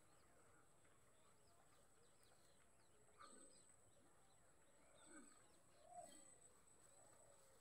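Near silence: a faint outdoor background with a steady thin high whine, and a few faint short calls about three, five and six seconds in.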